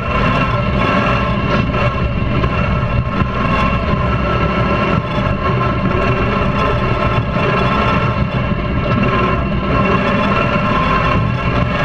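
Mud tractor (modified lawn tractor) engine running steadily under load while driving across muddy ground.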